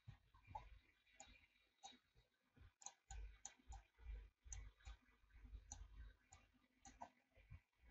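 Faint computer mouse button clicks, a dozen or so short sharp clicks at irregular spacing, with soft low thuds between them.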